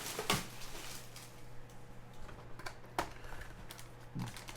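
Scattered light clicks and taps, irregular and a few seconds apart, over a steady low hum.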